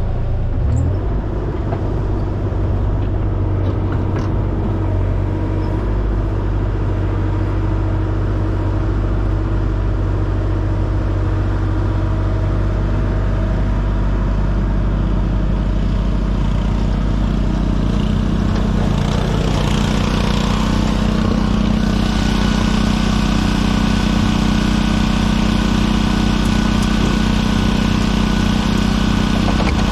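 Engine of a piece of heavy excavation equipment running steadily. About two-thirds of the way through it works harder, with more hiss and a steady whine joining in.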